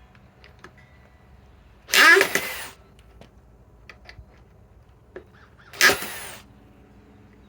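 DeWalt DCD805 cordless drill in low gear (speed 1) run in two short trigger bursts, about two seconds and six seconds in, its motor whirring up and winding down in pitch each time, with light clicks between.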